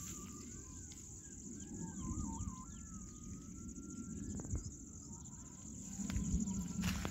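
A bird singing short warbling, looping phrases over a steady high-pitched insect drone, with a low rumble underneath.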